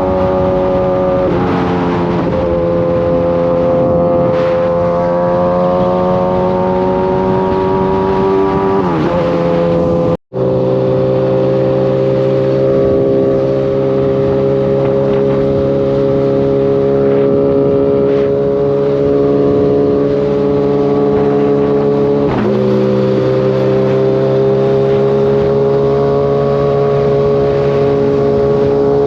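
Kawasaki sport bike's inline-four engine running at steady speed under riding load. The pitch dips with a gear change about a second in, again near nine seconds and near 22 seconds, and climbs slowly after each as the bike gathers speed. The sound cuts out for an instant near ten seconds.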